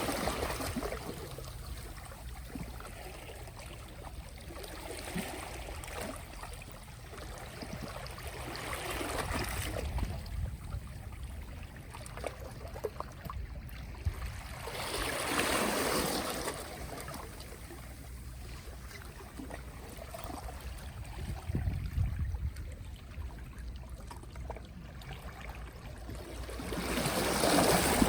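Small, gentle sea waves washing onto the shore. Each wash swells and fades away, about every six seconds.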